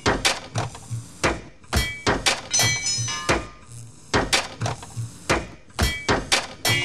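Rhythmic sound collage made from knocks, bangs and clanks sampled in a car scrapyard and looped into a beat, several hits a second, with short pitched metallic ringing tones among them.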